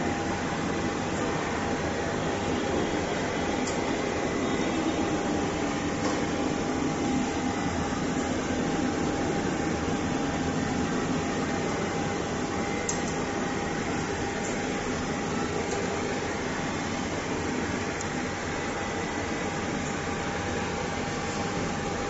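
Steady mechanical hum and hiss of running machinery, like a fan, with a faint steady whine through it.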